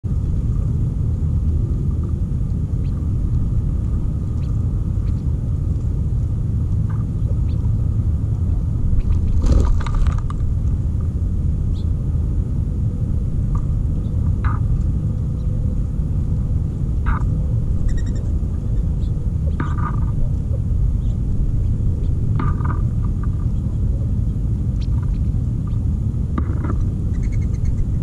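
A steady low rumble outdoors, with short bird calls scattered through it, a cluster of them about ten seconds in.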